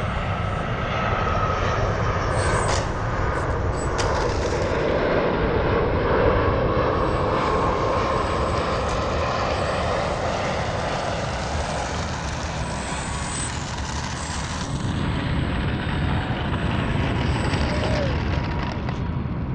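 Electric motor and propeller of an E-flite Pitts S-1S 850mm RC biplane in flight, a steady drone whose pitch drifts up and down as the plane circles.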